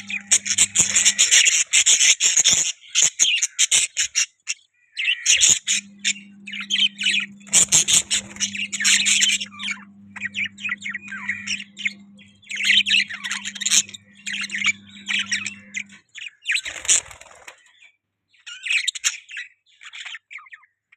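Budgies chirping and chattering in quick, broken bursts with short pauses. A low steady hum runs under part of it.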